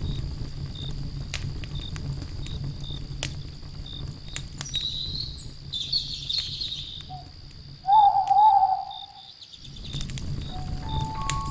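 Fire crackling, with scattered sharp pops over a steady low rumble. A faint insect chirps in a regular beat in the background, and a loud warbling animal call sounds once, about eight seconds in.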